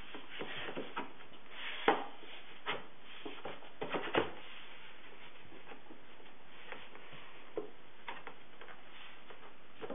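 Redwood boards knocking and sliding against one another on a workbench as they are pushed into line: a few sharp wooden knocks, the loudest about two seconds in and a small cluster around four seconds, with faint rubbing between.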